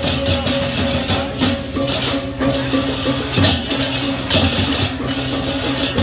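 Balinese processional gamelan: cymbals clash in quick repeated bursts over held, ringing gong tones and drums.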